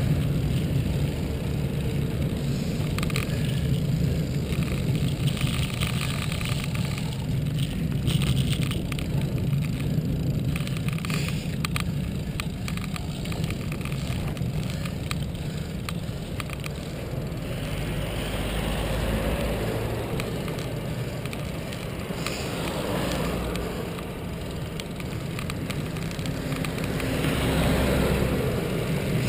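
Wind noise on a bicycle-mounted camera's microphone and tyre noise on tarmac as a road bike rides along, with frequent small rattles from road bumps. A van passing close alongside swells the rumble near the end.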